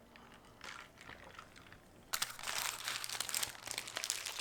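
Packaging being handled and crinkled: a few faint clicks, then about two seconds in a dense run of rapid crackling.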